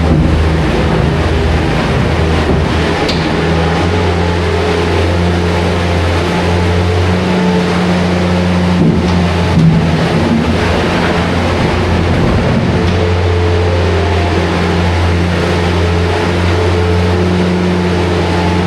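Engine of a farm machine running steadily, with its pitch rising and falling a little as the throttle changes.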